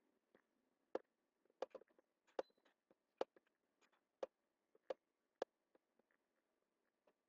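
Computer mouse button clicking: about a dozen sharp, irregularly spaced clicks as brush strokes are pressed and released, over faint room tone.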